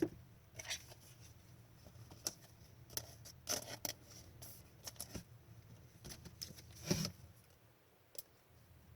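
Trading cards being handled and slid past one another: faint, scattered light swishes and clicks, with a slightly louder tap about seven seconds in.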